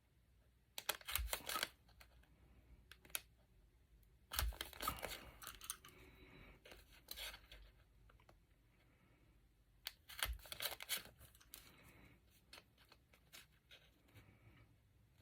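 A Crop-A-Dile hand hole punch clicking and crunching as it punches holes through journal paper. There are three short clusters of clicks about a second in, about four seconds in and about ten seconds in.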